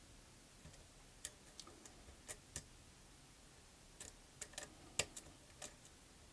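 Faint, irregular metallic clicks and ticks of a lock pick and tension wrench working the pins of a pin-tumbler lock, with one sharper click about five seconds in.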